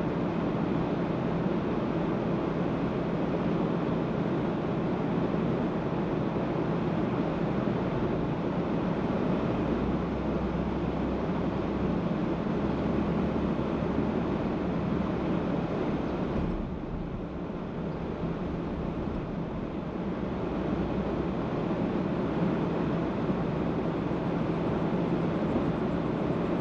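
Steady road noise of a car driving: tyre and engine rumble. It drops off for a few seconds about two-thirds of the way through, then comes back.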